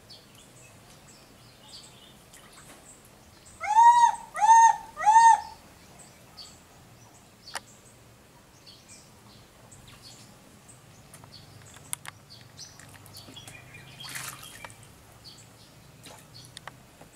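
Three loud animal calls in quick succession, each a clear whistle-like tone that rises and falls in pitch, followed later by a brief splash of water.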